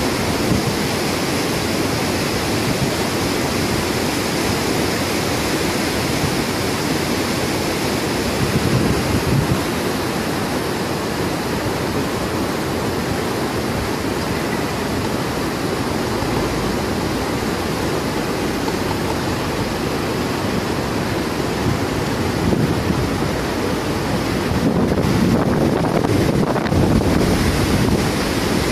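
Fast-flowing, churning river water rushing steadily, mixed with wind on the microphone; a little louder near the end.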